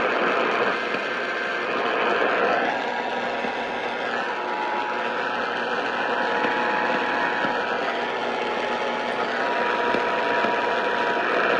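Radio static: a steady hiss with faint, steady tones that come in about four seconds in and fade near the end, with no voice.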